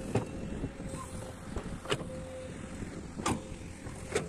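Excavator engine running with a steady hum. Four sharp knocks sound over it as the steel bucket strikes concrete and gravel.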